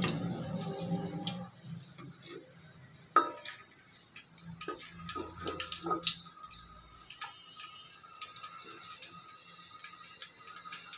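Masala pitha (nun bora) frying in hot oil in a karahi: a faint sizzle with scattered crackles. A sharp metal clink comes about three seconds in, and a few lighter knocks of the metal slotted spatula follow shortly after.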